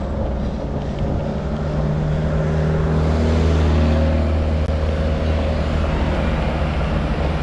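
A motor vehicle's engine passing close by, swelling to its loudest about three to four seconds in and then easing off, over steady road and wind noise.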